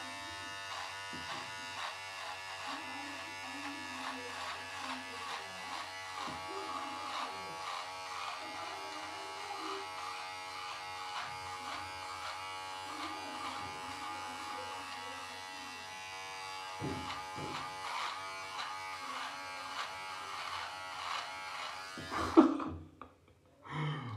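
Electric beard trimmer buzzing steadily as it cuts through a thick full beard, its pitch wavering as the blades bite. It switches off near the end, followed by a sharp knock.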